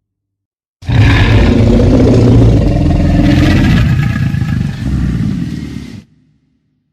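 Film T. rex roar sound effect: one long, loud, deep roar that starts about a second in, runs about five seconds and tails off near the end.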